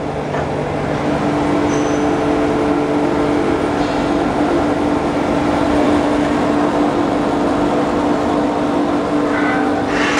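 Foam splitting machine running steadily as it slices memory foam into thin sheets: an even mechanical whir with a steady hum.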